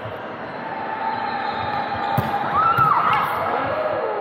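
Volleyball rally on a hardwood gym floor: two sharp hits of the ball about half a second apart a little past the middle, with a high squeak rising and falling between and after them. The sounds echo in the large hall.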